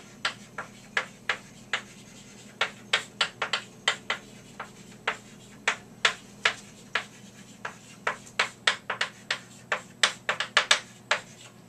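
Chalk writing on a chalkboard: a quick, irregular series of short taps and scrapes as each letter is stroked out, in bursts with brief pauses between words.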